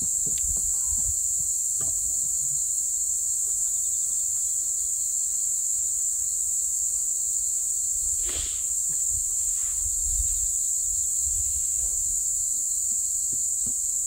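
Insects chirring in a steady high-pitched chorus, with a low rumble of wind on the microphone underneath and a faint brief whoosh about eight seconds in.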